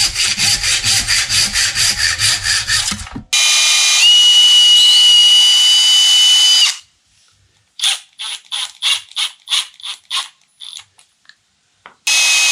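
Handsaw ripping through a board with quick, even strokes; then a cordless Milwaukee Fuel impact driver with a drill bit whines steadily as it drills a hole in the wood, stops, and after a run of sharp clicks and knocks starts drilling again near the end.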